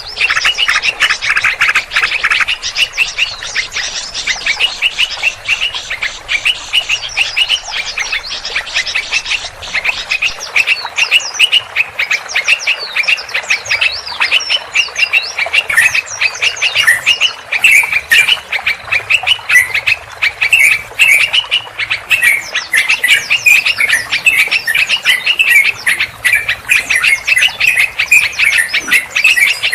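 Dense, continuous chatter of many small birds calling at once, rapid short squawking and chirping notes overlapping without a break. It is a mixed-species bird-trapper's lure recording of noisy calls.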